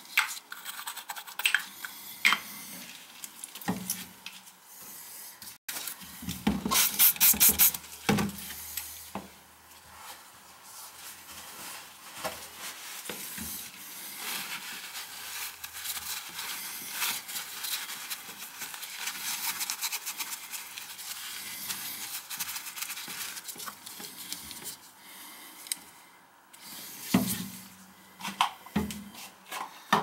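Paper towel rubbing and wiping the porcelain base of a toilet, a long stretch of steady rubbing. Scattered taps and clicks come at the start and near the end, with a short run of quick, louder strokes about seven seconds in.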